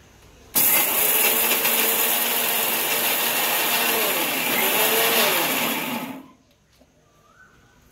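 Steele mixer grinder's motor running, dry-grinding roasted dried red chillies and urad dal in its small steel jar. It starts about half a second in and runs for about five and a half seconds, its pitch dipping and rising a couple of times, then stops.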